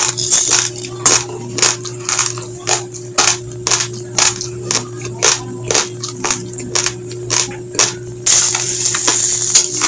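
Raw long-grain basmati rice crunched between the teeth in steady chewing, about two or three sharp crunches a second. Near the end the crunching gives way to a loud rustling rattle of loose dry rice grains.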